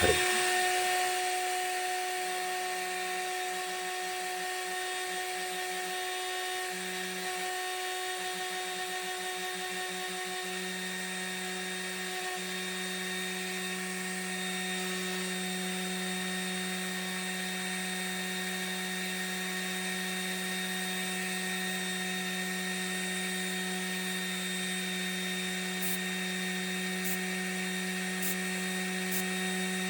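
Entry-level CNC mill's spindle running at a steady high whine while a small end mill cuts microfluidic channels into an acrylic (PMMA) workpiece. A lower hum starts and stops over the first dozen seconds, then holds steady.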